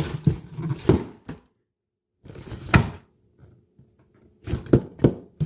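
A series of short knocks and thumps, about seven in all, like a door and things being moved around a small room, with a moment of dead silence from about a second and a half to just past two seconds in.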